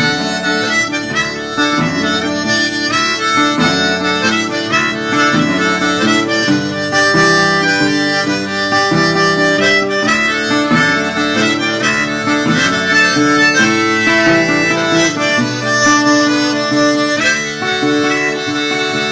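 Diatonic harmonica playing a fast Cajun-style instrumental break in an accordion-like manner, with guitar accompaniment.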